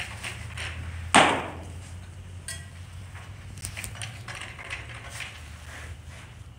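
A single sharp smack of a baseball about a second in, ringing out in the big hall, followed by light knocks and rustles of the catcher's gear.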